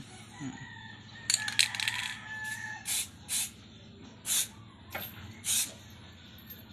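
Aerosol spray can: a quick rattle of its mixing ball as it is shaken, then about six short hisses of spray a second or so apart.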